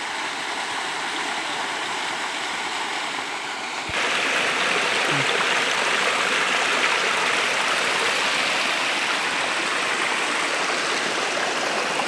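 Spring water rushing and splashing down over rocks in a small cascade: a steady rush that jumps louder and brighter about four seconds in.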